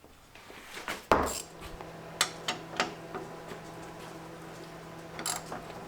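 Metal hand tools clicking and clinking on tailgate hardware, with one loud sharp clack about a second in and a few lighter clicks after it, over a faint steady hum.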